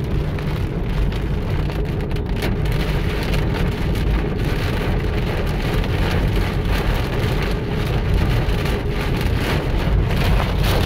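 Rain drumming on a moving car's roof and windshield, heard from inside the cabin: a dense patter of drops over the steady low rumble of the car on the road. The drops grow thicker after about two seconds.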